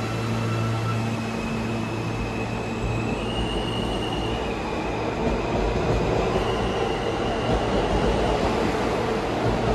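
New York City R160 subway train pulling out of the station, its traction motors whining at pitches that jump up and down in steps while the wheel and car rumble builds as it gathers speed.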